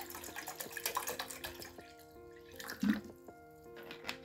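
Water sloshing and dripping in a cook pot as it settles just after being poured in, the small splashes thinning out after about two seconds. Soft background music plays throughout, and there is a brief louder thud about three seconds in.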